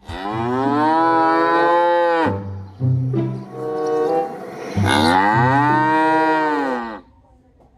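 Cow mooing three times. The first and last moos are long, each rising and then falling in pitch over about two seconds, with a shorter moo between them.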